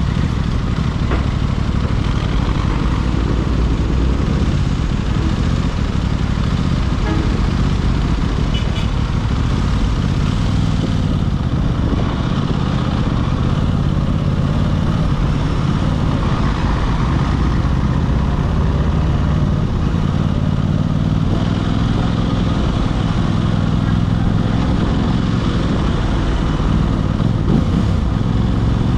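Aprilia RS660's parallel-twin engine running steadily on the move.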